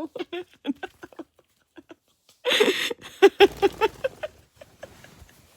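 Pet bird chattering: a quick run of short pitched calls, then a louder harsh squawk about two and a half seconds in, followed by more short calls.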